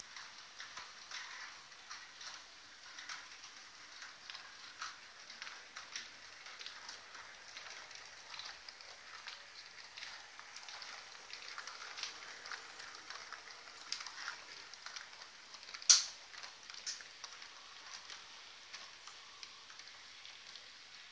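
Model railway freight train rolling on track: a steady patter of light, irregular clicks and ticks as the wheels run over rail joints and points, with one sharper, louder click about 16 seconds in.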